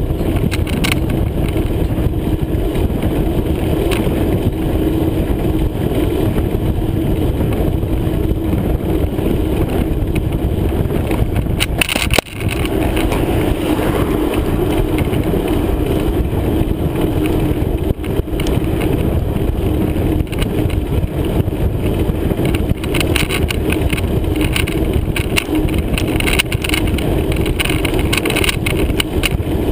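Steady rumble and wind noise of a bicycle ride picked up on a bike-mounted or rider-worn camera, with a brief sudden drop about twelve seconds in.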